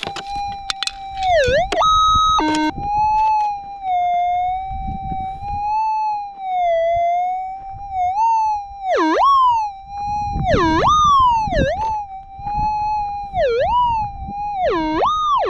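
Minelab GPZ 7000 metal detector's steady threshold tone. From about 8 s in, a series of sharp warbling dips and rises in pitch, the detector's responses as the coil sweeps over a buried target. A brief stepped beep sounds about 2 s in.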